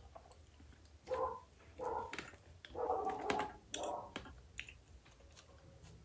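Faint eating noises from a woman tearing and rolling fufu by hand: wet mouth clicks and four short muffled mouth sounds in the first two thirds.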